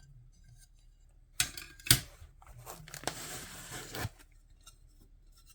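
Packaging being pulled and torn while a small stained glass sheet is unwrapped, lasting about two and a half seconds from just after a second in, with one sharp click a little before the middle.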